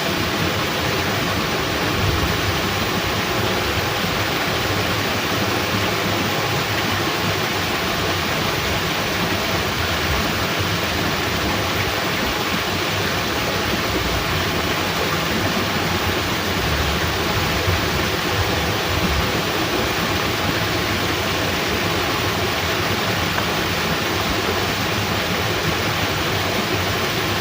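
Steady rushing noise of heavy rain together with water flowing through a fish-pond sluice gate, even and unbroken throughout.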